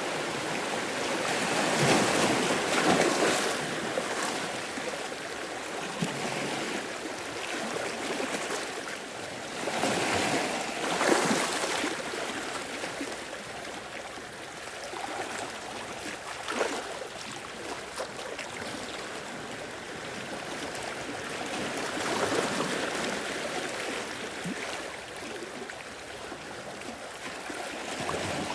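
Sea waves washing in and breaking, each surge swelling and fading every several seconds, over a steady hiss of moving water.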